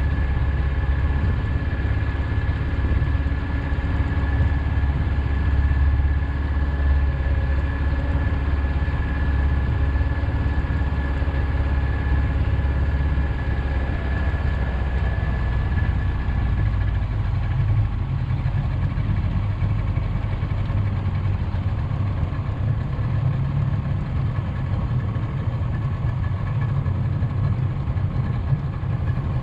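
An engine running steadily, with a low hum that shifts slightly higher in pitch a little past halfway through.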